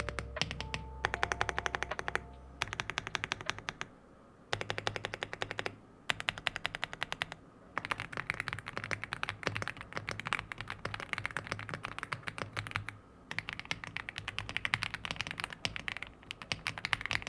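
Fast typing on an Aula F75 gasket-mounted mechanical keyboard with pre-lubed linear Graywood V3 switches and double-shot PBT keycaps: rapid runs of keystrokes in several bursts with short pauses between them. The sound is creamy and slightly thocky.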